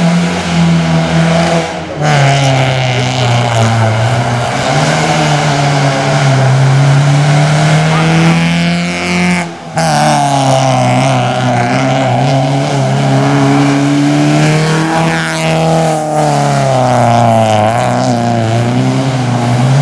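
Hillclimb race car engine running hard up the hill, its pitch rising and dropping again and again as it revs through gear changes. The sound breaks off briefly about halfway through, then the engine note picks up again.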